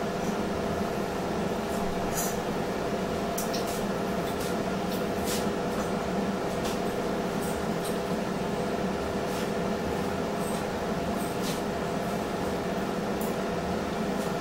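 Kitchen range hood exhaust fan running with a steady hum, joined now and then by light clicks and clinks of kitchenware.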